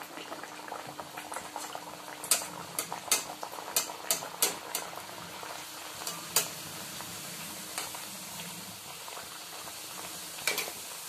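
Beetroot kachori deep-frying in hot oil in a steel kadai: a steady sizzle and bubbling. A metal spatula clicks and taps against the pan several times between about two and seven seconds in, and twice more near the end.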